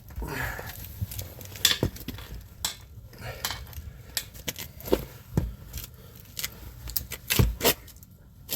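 Sharp metal clinks and knocks, a dozen or so at irregular intervals, from a valve stem puller tool being worked against the steel wheel rim as a new tire pressure sensor's valve stem is pulled into the rim hole.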